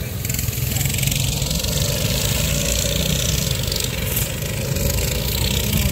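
Small single-cylinder engines of box stock racing minibikes running on a dirt track.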